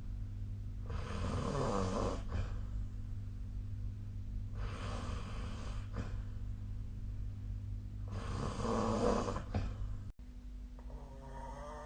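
A person snoring in sleep: three snores about four seconds apart, over a steady low hum. Near the end, after an abrupt break, comes a short wavering pitched sound.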